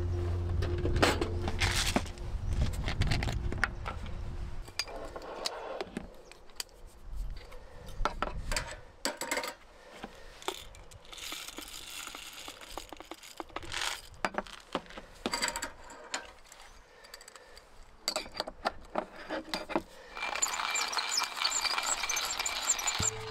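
Scattered clicks, clinks and knocks of small hard objects being handled, with a brief hiss near the end. Background music fades out in the first few seconds.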